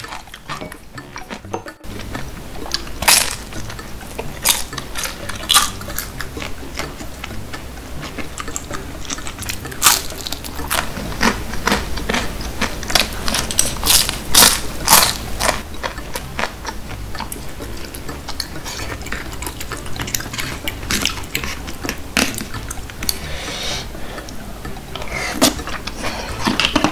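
Close-miked eating: crunchy bites and chewing of fried dumplings, with wooden chopsticks and a spoon clicking against plastic takeout containers. Quiet background music plays underneath.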